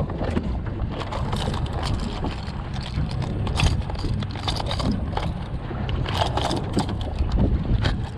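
Hard-bodied fishing lures clicking and rattling against each other and a plastic tackle box as they are rummaged through, with a plastic lure packet crinkling, over a steady low rumble of wind and water.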